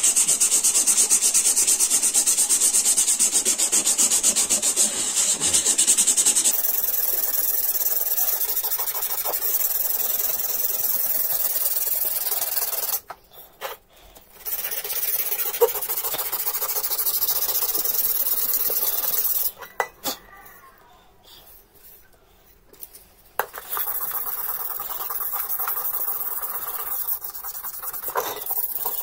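Sandpaper rubbed rapidly back and forth over the oxidised copper bottom of a bowl, a steady scratchy hiss of quick strokes, loudest for the first six seconds. It stops twice, briefly about thirteen seconds in and for about four seconds around twenty seconds in.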